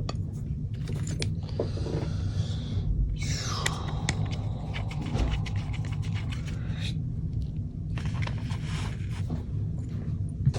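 Small clicks and scrapes of airsoft gearbox parts being handled as the gearbox shell is closed up, over a steady low hum.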